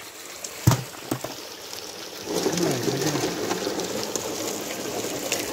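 Water rushing down a metal gold sluice over gravel, growing louder about two seconds in. A single sharp knock comes a little before that.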